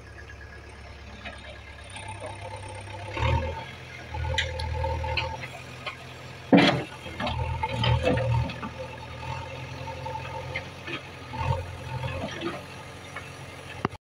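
JCB backhoe loader's diesel engine running, rising in several surges as it works under load. A single sharp knock, the loudest sound, comes about six and a half seconds in.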